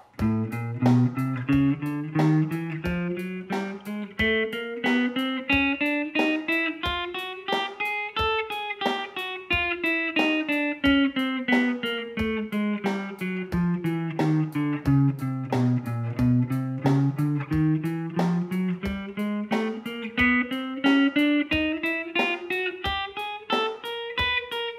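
Ibanez electric guitar playing a chromatic scale, one note at a time at about three notes a second, starting on the A at the low E string's fifth fret. It climbs two octaves semitone by semitone, comes back down to the low A, and climbs again. A steady click marks each beat at 90 beats a minute.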